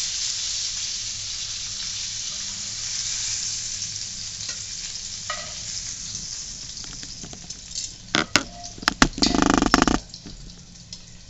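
Food sizzling in a hot frying pan, the sizzle slowly fading. Near the end come a few sharp knocks and then a loud, brief burst of noise.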